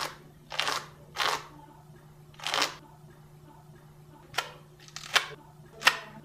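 A sharp blade scraped in short strokes across the SuperFabric guard-plate surface of a HexArmor SteelLeather II glove in a cut-resistance test. There are about seven strokes, the first few longer rasps and the later ones shorter and sharper.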